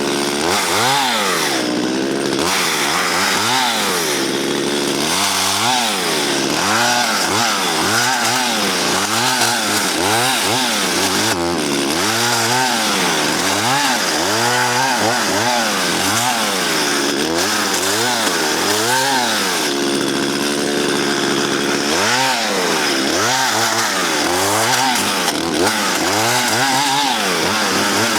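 Chainsaw cutting into a fallen spruce, its engine pitch rising and falling again and again about once a second as it works through the wood. The chain is dull and struggles in the cut.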